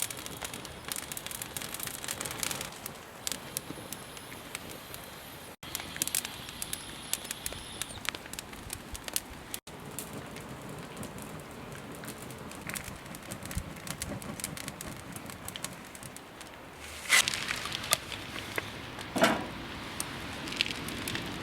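Wood campfire crackling and popping over a steady hiss, with two louder, brief noises near the end.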